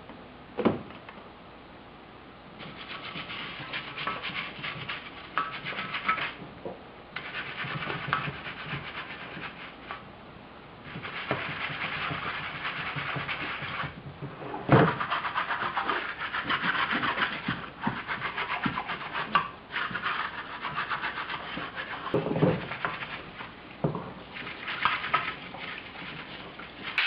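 Scraping strokes on a metal rotary engine rotor housing, cleaning off old gunk, in spells of a few seconds with short pauses between, and a few sharp knocks of parts or tools being set down.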